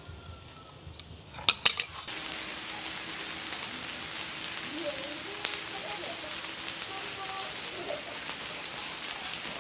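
Food frying in hot oil in a pan, a steady sizzle that begins about two seconds in, just after a few sharp knocks.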